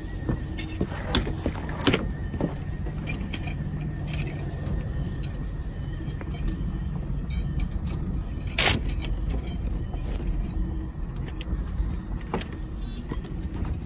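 Electric trolley line car rolling along the track, drawing its power from the overhead trolley wire through a wheel collector. It makes a steady low rumble with scattered clicks and clanks, a faint whine in the first two seconds and one sharp crack partway through.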